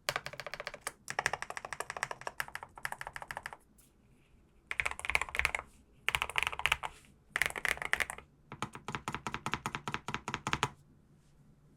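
Fast typing on a NuPhy Kick75 mechanical keyboard fitted with low-profile switches: quick runs of keystrokes in about six bursts with brief pauses between them, stopping about a second before the end.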